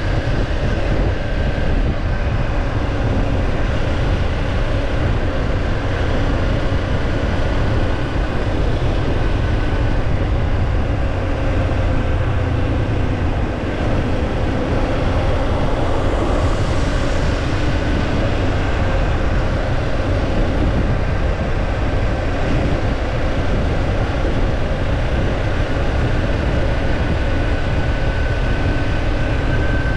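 Kawasaki Ninja 250's parallel-twin engine running at a steady cruise, almost buried under heavy wind rush on the action camera's microphone. The engine pitch dips slightly about halfway through and rises again near the end.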